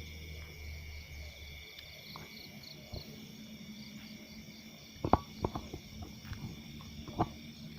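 Crickets and other insects trilling steadily in the night, with a few sharp clicks or knocks about five seconds in and again near the end.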